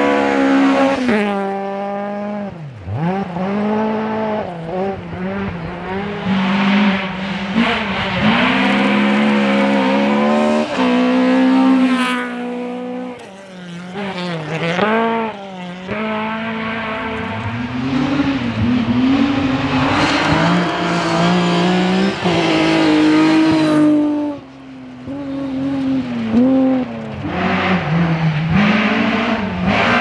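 Classic rally cars on a gravel special stage, their engines revving hard and climbing through the gears as they come past one after another. Each pass-by ends with the engine pitch dropping sharply as the car goes by.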